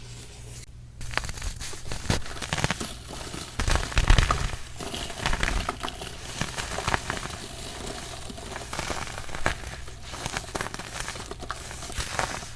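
Baking soda being crushed and crumbled: a dense, crisp crunching and crackling made of many small cracks. It starts about a second in and is loudest around four seconds.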